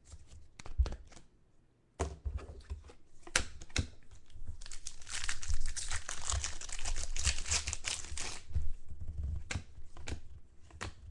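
Trading-card pack wrappers being torn open and crinkled by hand, a few scattered clicks and handling noises first, then about two seconds in a long stretch of dense crackling that is loudest in the middle and thins out near the end.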